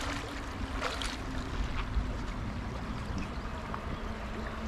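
Outdoor river ambience: low wind and water rumble with a faint steady drone that sinks slightly in pitch, and a few brief crackles or splashes about a second in and near two seconds.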